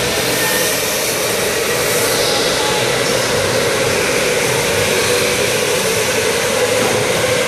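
Electric go-karts racing around an indoor track, a steady whirring noise of motors and tyres with no break or impact.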